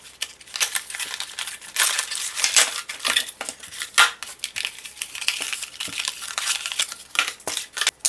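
Product packaging being handled and unpacked: irregular crinkling and rustling with small clicks and knocks, the sharpest knock about four seconds in.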